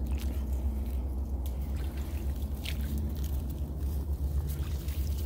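Faint squishing and trickling of water in flooded, leaf-littered swamp ground, with a few soft clicks, over a steady low rumble.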